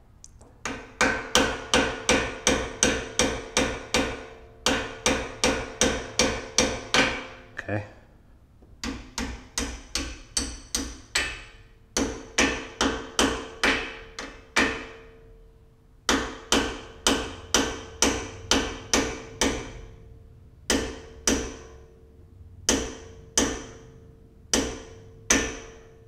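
Claw hammer tapping the pad retaining pins back through a Brembo front brake caliper: runs of light metal-on-metal strikes, about three or four a second, each ringing briefly, with short pauses between runs and slower single taps near the end.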